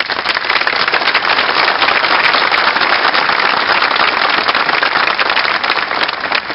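A large audience applauding, a dense crackle of many hands clapping that swells quickly at the start and dies away near the end.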